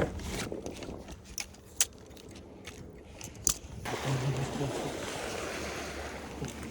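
A few sharp clicks and knocks against a quiet background, then a louder, steady wash of water and wind noise from about four seconds in.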